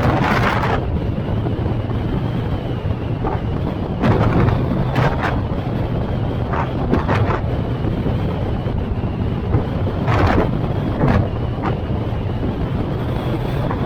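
A car driving along a road: steady engine and tyre rumble, with wind buffeting the microphone in short gusts several times.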